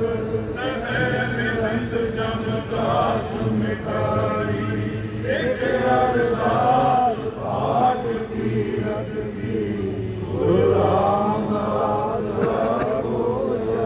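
Male voices chanting Sikh devotional hymns (Gurbani) over a steady low drone.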